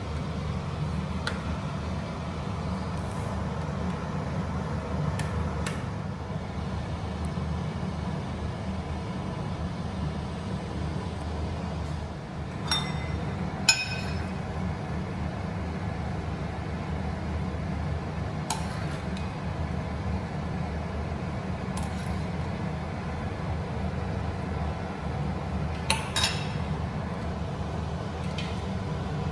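Occasional sharp clinks of utensils and bowls against a stainless steel pot of water as ingredients go in, over a steady low hum. The loudest clink comes about fourteen seconds in.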